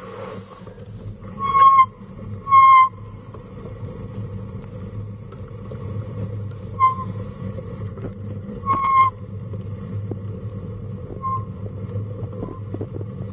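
Pet stroller wheels rolling over a paved path with a steady low rumble, broken by several short, high-pitched squeals.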